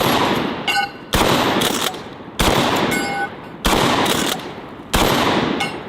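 Standard Manufacturing DP-12 shotgun fired five times at an even pace, about a second and a quarter apart, each shot echoing as it dies away.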